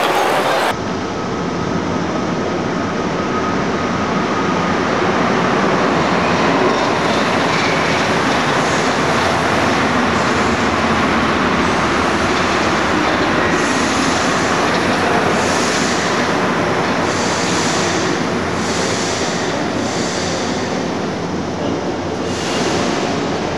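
Paris Métro train running through an underground station: a loud, steady rumble from the carriages and wheels, echoing under the vault. About halfway through, a run of short high rushing sounds comes roughly every second and a half.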